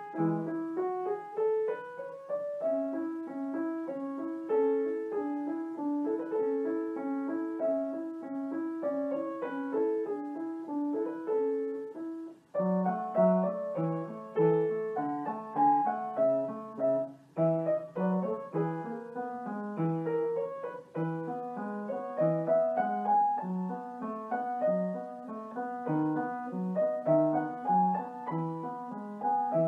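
Background piano music: a melody over an evenly repeating accompaniment, with a short break about twelve seconds in.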